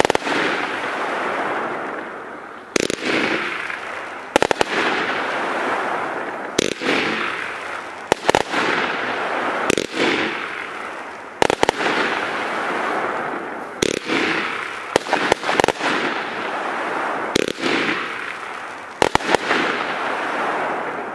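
Weco 'Black Widow' 36-shot XXL brocade firework battery firing: sharp reports every second or two, some in quick pairs or threes, each followed by a fading hiss. It dies away near the end as the battery burns out.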